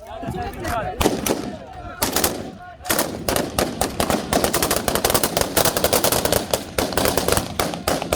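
Celebratory gunfire: a few separate shots with men's voices shouting in the first seconds, then from about three seconds in a near-continuous rattle of rapid shots.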